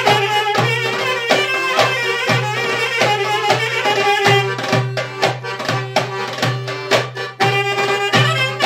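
Balkan folk tune played live on saxophone, piano accordion and a hand drum. The drum keeps a steady, even beat under the saxophone's melody and the accordion's sustained bass and chords.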